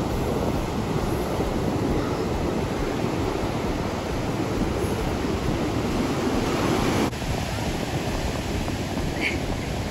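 Ocean surf washing onto the shore, with wind buffeting the microphone in a steady rushing noise that drops a little in level about seven seconds in.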